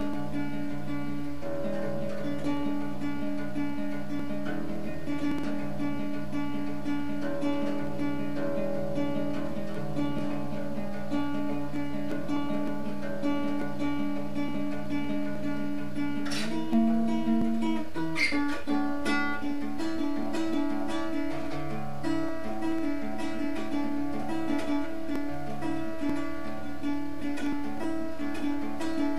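Acoustic guitar music, a steady pattern of picked and strummed notes, with a couple of sharper accents about halfway through.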